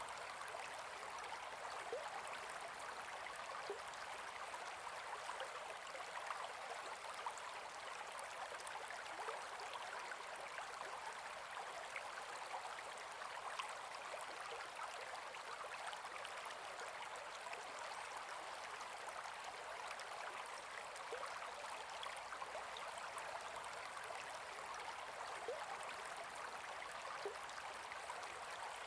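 Gentle forest river running steadily, an even rush of flowing water with small splashes scattered through it.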